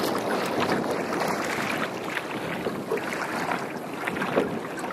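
Choppy water lapping and sloshing against a kayak's hull, with wind on the microphone and a few light splashes.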